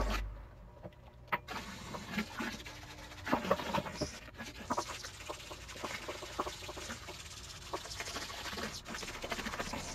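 Soapy water sloshing and splashing in a sink while a greasy car AC compressor is scrubbed under the spray from a small submersible pump's hose and brush, with irregular knocks and clicks as the part and hose are handled against the sink.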